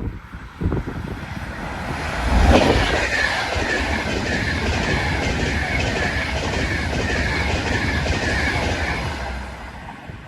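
Avanti West Coast Class 390 Pendolino electric train passing through, its wheels clattering over the rail joints. It comes up loudest about two seconds in, runs steadily, then fades away near the end.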